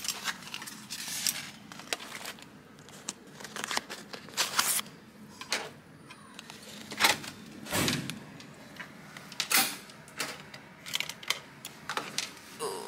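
Hotel room door being unlocked with a key card and opened: a run of clicks, taps and rustles from the card, the electronic lock and the handle, with one heavier thump a little past halfway.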